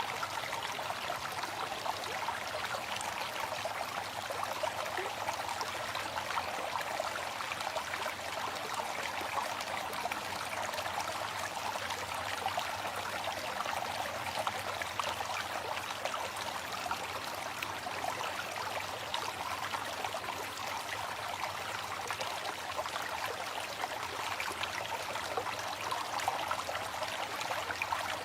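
Waterfall: water falling and splashing in a steady, unbroken rush, heaviest in the mid and upper range.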